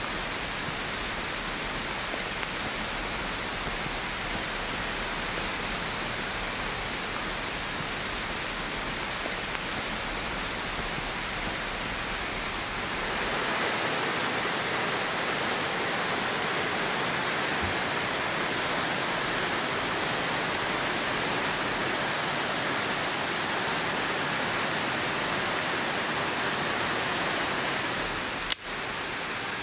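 Flowing river water: a steady rushing hiss that gets a little louder and brighter about halfway through. One sharp click near the end.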